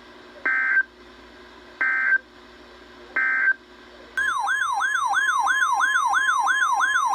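NOAA Weather Radio alert signal heard through a receiver: three short bursts of SAME (EAS header) data, each about a third of a second, a little over a second apart. A little over four seconds in, the steady 1050 Hz warning alarm tone starts together with a warbling electronic alarm tone that rises and falls about three times a second, announcing a severe thunderstorm warning.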